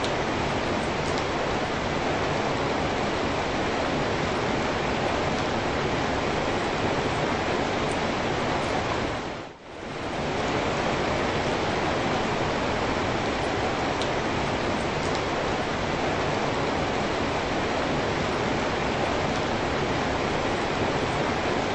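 Rain falling steadily, an even wash of noise that dips briefly about ten seconds in and then comes back at the same level.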